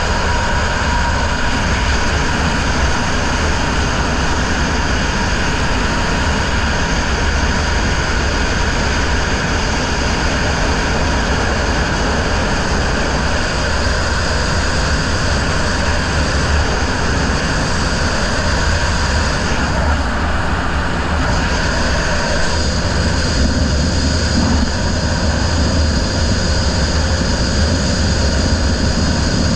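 Racing riverboat's outboard motor running steadily at speed, heard through a helmet-mounted microphone along with the rush of wind and water.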